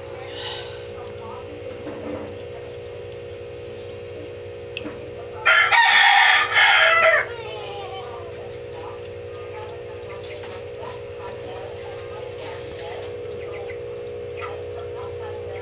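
A rooster crows once, loud and close, about five and a half seconds in, lasting just under two seconds. A steady low hum runs underneath.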